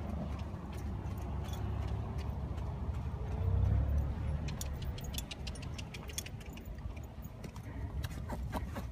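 Horses' hooves clopping on hard, stony ground: a run of irregular clicks in the second half, over a steady low rumble.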